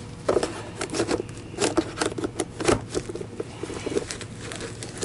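Rustling and crinkling of a Miele vacuum dust bag being unfolded by hand and pushed into the canister's bag holder, a quick run of irregular crackles.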